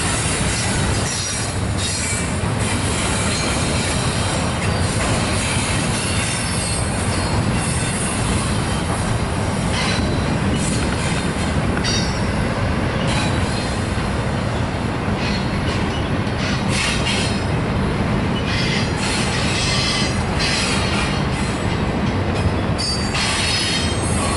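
Double-stack intermodal freight train's well cars rolling past, with a steady rumble and rattle of steel wheels on the rails.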